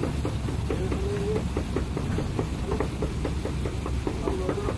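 Large taco knife chopping meat on a wooden chopping block, a quick steady run of knocks, over a steady low rumble.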